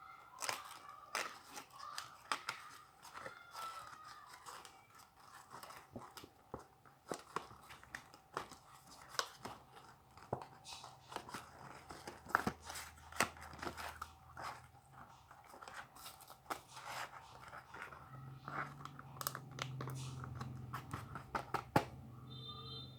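Packaging being opened by hand: an irregular run of snips, tearing and crinkling plastic.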